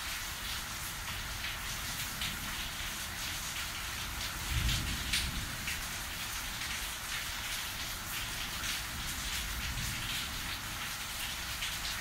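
Thunderstorm rain falling steadily as an even hiss, with individual drops ticking through it. About four and a half seconds in, a short low rumble of thunder.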